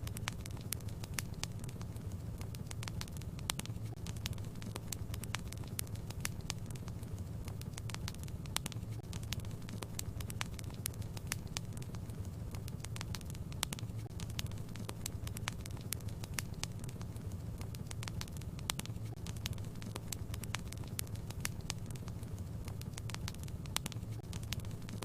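Wood fire burning in a fireplace, crackling with many sharp, irregular pops over a steady low rumble.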